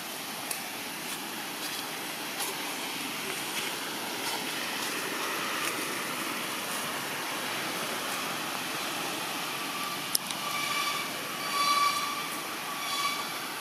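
Steady rushing outdoor background noise with faint scattered clicks. About ten seconds in there is a sharp click, followed by three or four short, high-pitched animal calls with clear overtones.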